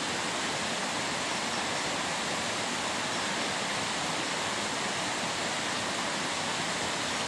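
Steady, even rushing noise with no breaks or changes.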